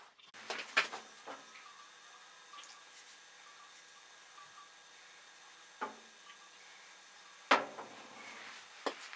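A few scattered knocks and taps as a restored hammer with a polished steel head is handled, the loudest a single knock about seven and a half seconds in as the hammer is set down on the workbench.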